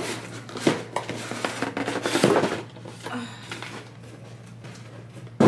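Cardboard packaging being handled as a large shipping box is unpacked and a gift box lifted out: scattered knocks and rustles, with a sharper knock near the end.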